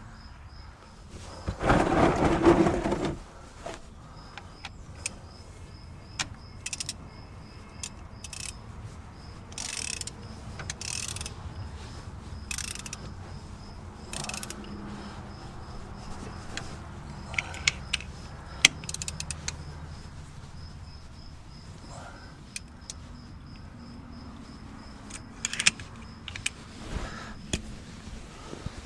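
Metal tools clinking and clicking, with scattered sharp knocks, as a socket and wrench are worked on the backhoe. A louder rattling noise lasts about a second and a half, near two seconds in.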